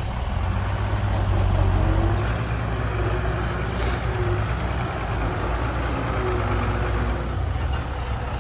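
Heavy diesel engine of earthmoving machinery running steadily with a deep, low rumble that swells a little about a second in.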